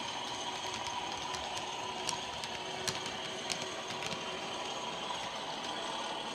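Model railway freight wagons rolling past on the track, their wheels clicking over the rail joints every half second or so over a steady running rumble.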